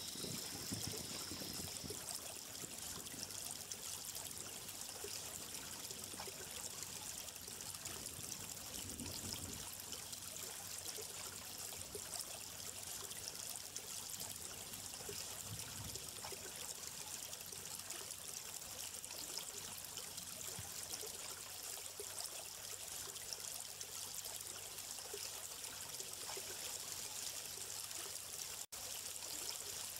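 Water trickling and flowing steadily, as in a small stream, with a momentary dropout near the end.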